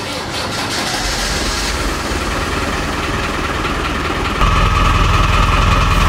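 Land Rover Defender engine running steadily at idle, becoming louder and deeper about four seconds in.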